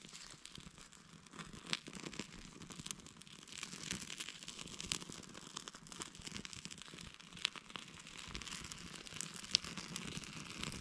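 Small fire of dry wood shavings and feather sticks crackling in irregular small snaps, with shavings and thin splinters rustling and snapping as they are fed in by hand.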